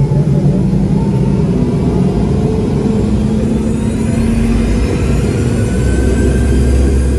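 Jet airliner's engines running as it taxis: a steady low hum with a thin whine that climbs slowly in pitch from about halfway through.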